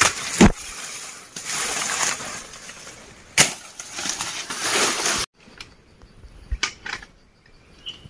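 Dry leaf litter rustling and crackling in irregular bursts, with a couple of sharp snaps. The sound drops away abruptly about five seconds in, leaving a few faint clicks.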